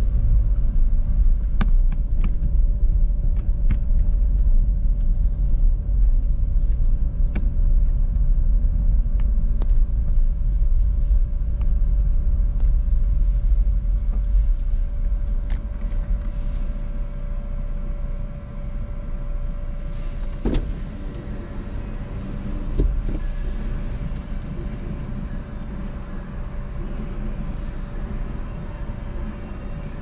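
Car running and rolling on the road, heard from inside the cabin as a steady low rumble with scattered light clicks. Two sharper knocks come about two-thirds of the way through, and the rumble eases a little toward the end.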